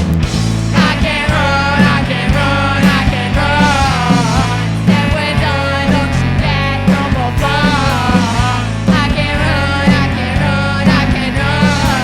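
A rock band with drums, bass guitar, electric guitar and saxophones playing live, with a wavering lead melody over a pulsing bass line.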